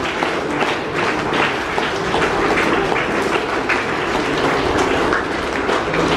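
Audience applauding, many hands clapping at once in a steady patter.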